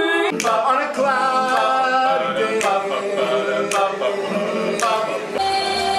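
Men's a cappella group singing in close harmony, with a sharp click on the beat about once a second. Near the end it changes to a single held sung note over a low hum.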